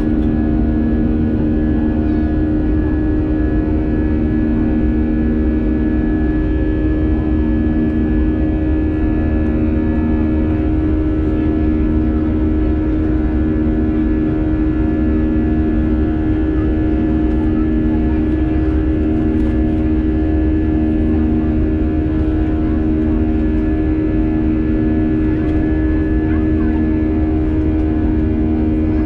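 Airbus A320-200 jet engines and airflow heard inside the cabin during the climb after takeoff. The drone is loud and steady, with a deep rumble under it and a humming tone that throbs slowly, about once every two seconds.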